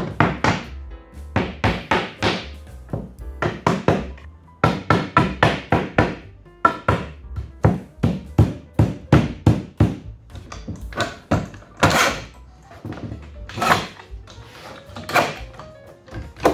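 Background music with a quick, percussive beat.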